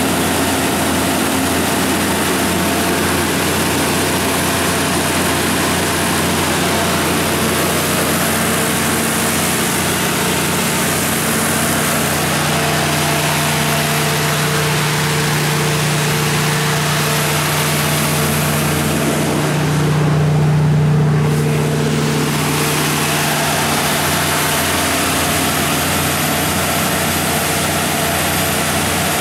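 Caterpillar/Olympian G60F3 60 kW gas generator set with its Ford WSG-1068 V10 engine running steadily at its 1800 rpm generator speed, a constant low engine hum. The hum grows a little louder about two-thirds of the way through.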